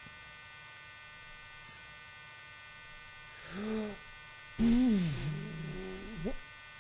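Steady electrical hum throughout. About three and a half seconds in, a man's voice makes a short wordless sound, and about a second later a longer, louder wordless vocal sound whose pitch drops, levels out and rises again at the end.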